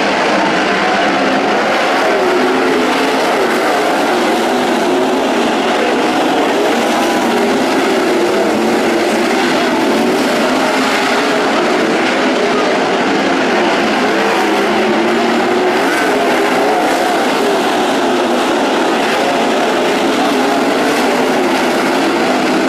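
A field of sprint cars racing, their V8 engines running together. Many overlapping engine notes rise and fall as the cars go around, loud and unbroken.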